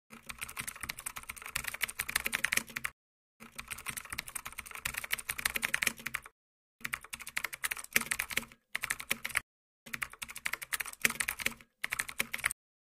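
Computer keyboard typing: fast runs of key clicks in several stretches broken by short pauses, timed to text being typed out on screen.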